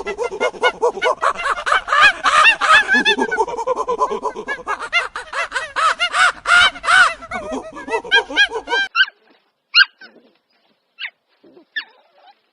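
A flock of birds calling densely over one another, which cuts off abruptly about nine seconds in. After it come a few short, high, separate yips.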